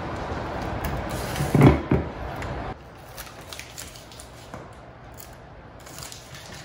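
Hands handling an LED grow-light bar and Velcro strips on the lid of a plastic storage bin: a loud, brief handling noise on the plastic about a second and a half in, then faint small clicks and rustles. The steady background hum cuts out abruptly a little under three seconds in.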